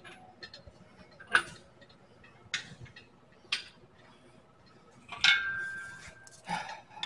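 A Pittsburgh hydraulic engine hoist banging and clanking as it is pumped up to raise the new front beam: about one sharp metal knock a second. The loudest knock, about five seconds in, rings on briefly.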